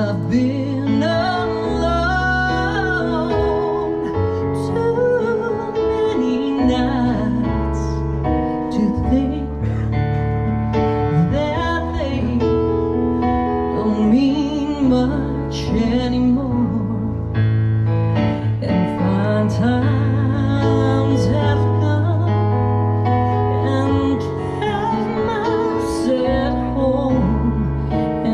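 Live music: a woman singing with vibrato over an instrumental accompaniment with held bass notes.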